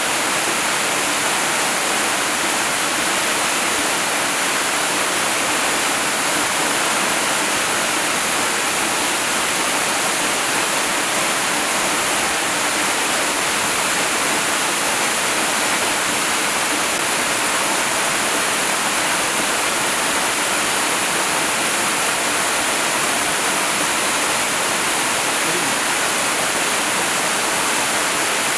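Waterfall rushing in a steady, even hiss, weighted toward the high end with little low rumble.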